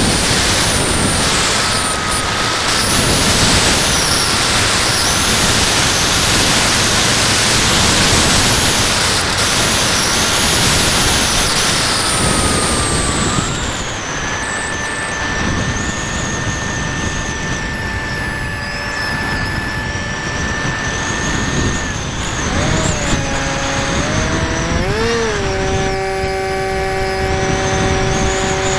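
Electric motor and pusher propeller of a Bixler 2 foam RC plane whining steadily under heavy wind rush on the onboard microphone. The whine steps up in pitch about halfway through as the wind noise eases, then wavers and settles lower a few seconds before the end.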